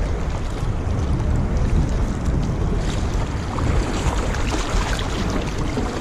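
Wind buffeting the microphone in a steady low rumble over lapping, splashing lake water around a kayak, with small scattered ticks and splashes.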